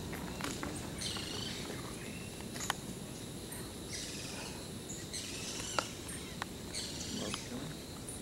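Forest ambience: birds calling in the canopy, high calls coming in short bunches every second or two, over a steady low background noise, with a few sharp clicks.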